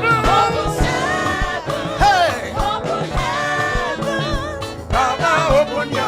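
Live gospel choir singing over a band, with a steady drum beat.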